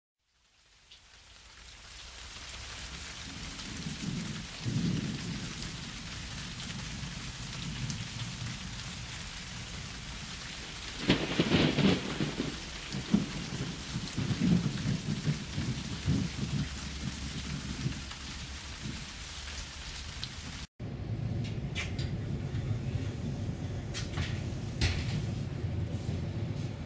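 Rain with rolls of thunder, fading in over the first few seconds, the loudest roll about eleven seconds in. About twenty seconds in it cuts to the low running noise of a train heard from inside a carriage, with a few clicks.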